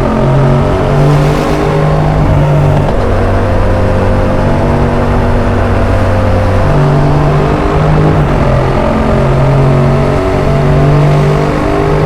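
Yamaha MT-07's parallel-twin engine through an Arrow aftermarket exhaust, heard from the rider's seat. The engine pitch climbs and drops in steps as the bike accelerates and changes gear, and holds steady for a few seconds in the middle.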